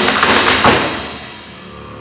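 Percussive stage music with sharp taps and thuds that ends about a second in and fades to a low tail.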